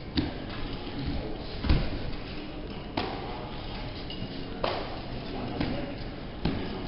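Thuds and slaps from a two-person takedown drill on foam mats: bare feet landing, hands striking and bodies hitting the mats. Five separate impacts come about every one and a half seconds.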